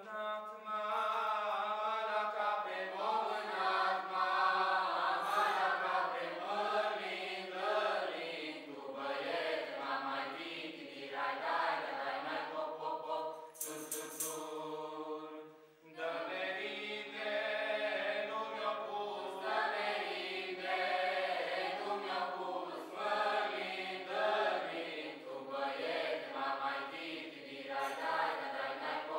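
Mixed choir of men's and women's voices singing a Romanian Christmas carol (colind) unaccompanied, with a short pause about halfway through.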